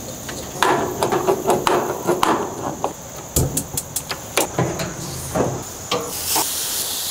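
Knocks and clicks of a stainless gas grill being opened and lit: the cabinet door is handled and the burner knobs are turned with clicking. About six seconds in a hiss starts as a rib is laid on the hot grate with tongs and begins to sizzle.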